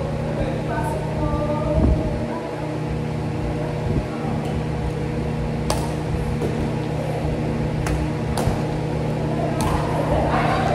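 Engine running steadily, with a few sharp clicks from work on it in the second half.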